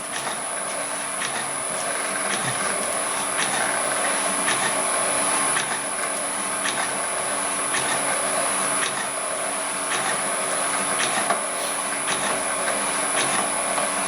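Homemade can crusher and wire cutter machine running in after reassembly: a steady mechanical hum with a light tick about once a second.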